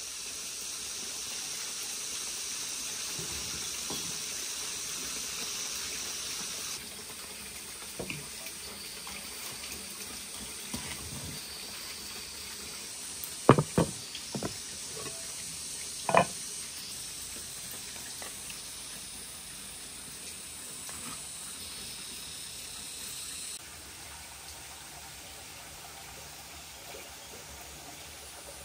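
A few sharp knocks of a dark bowl handled on a wooden board, the two loudest close together and another about two seconds later, over a steady hiss.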